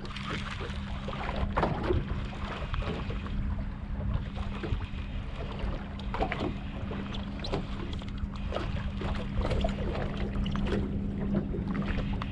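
Water slapping and knocking against a small boat's hull at irregular moments, over a steady motor hum.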